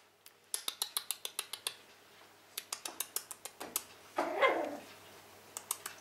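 Cavalier King Charles Spaniel puppy's claws clicking rapidly on a hardwood parquet floor as it scampers, in two short runs, then a single short bark about four seconds in.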